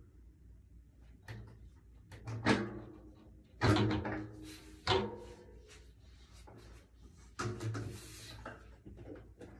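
Knocks and clunks of drum-set hardware being handled while a drum's legs are adjusted: a few separate knocks, the louder ones followed by a brief ringing.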